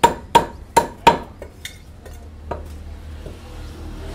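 Meat cleaver chopping through chicken onto a wooden log chopping block: four sharp chops in quick succession, each with a short metallic ring, then a few lighter knocks by about two and a half seconds in.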